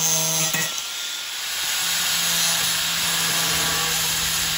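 Angle grinder with a thin cutoff wheel cutting through the metal wires of a cooling rack: a steady motor whine over a grinding hiss. The whine drops out for about a second, starting about a second in, then comes back.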